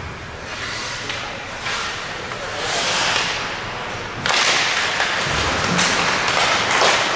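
Ice hockey play: skate blades scraping and hissing on the ice, with a few sharp knocks, louder from about four seconds in.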